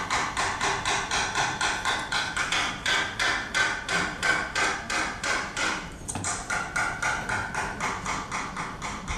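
Rapid, even percussive knocking, about five strokes a second, with a short break about six seconds in.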